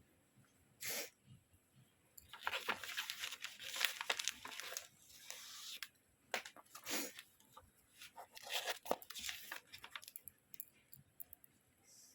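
Packaging being torn open and crinkled by hand: a short rip about a second in, then several seconds of tearing and rustling in uneven bursts.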